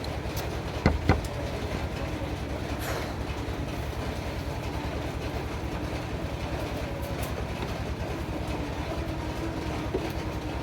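A steady, fast rhythmic mechanical rumble, with two sharp knocks about a second in.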